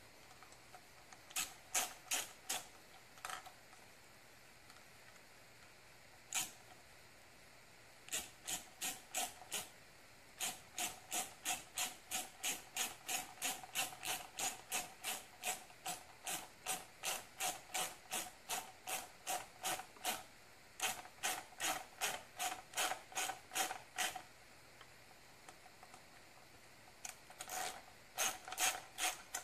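Hose clamp on a catch can hose being tightened with a hand tool, clicking evenly about two or three times a second. The clicking comes in several runs with pauses between them, the longest lasting about ten seconds in the middle.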